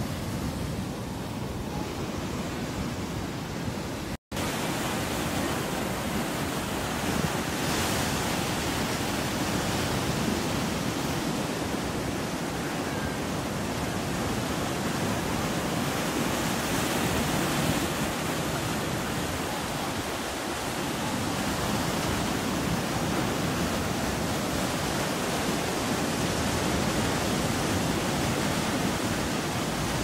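Ocean surf breaking on a rocky shore: a steady rushing wash of waves, with wind on the microphone adding a low rumble. The sound cuts out for an instant about four seconds in.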